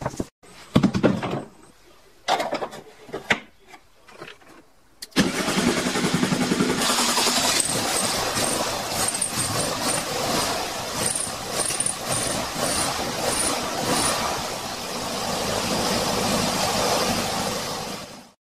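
A few short bursts, then the 1967 Volkswagen Beetle's air-cooled flat-four engine catches about five seconds in and runs steadily, fading out near the end.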